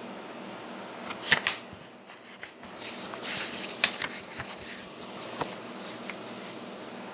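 Paper pages of a book being leafed through and handled: crisp page flicks and short rustles, loudest between about one and four seconds in, over a steady hiss.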